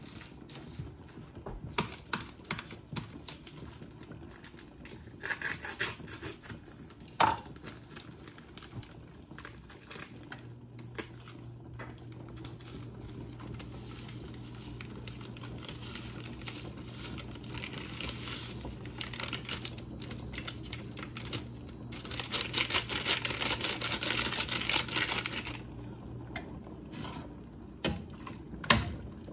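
Plastic-foil sachets of sinigang (tamarind soup base) mix crinkling and clicking as they are handled and poured into a stainless steel pot, with a few seconds of loud rustling hiss about two thirds of the way in. A spoon clinks against the pot near the end, over a low steady hum.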